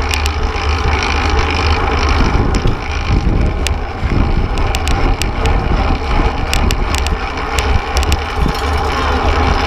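Wind buffeting an action camera on a fixed-gear race bike at speed: a steady low rumble mixed with tyre and road noise, broken by frequent sharp clicks and rattles.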